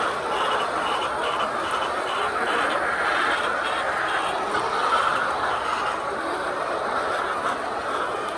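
A flock of laying hens clucking together in a steady, crowded chorus.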